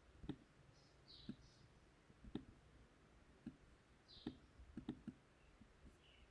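Computer mouse clicks, sparse and faint, roughly one a second, with a quick run of several clicks near the end, over quiet room tone.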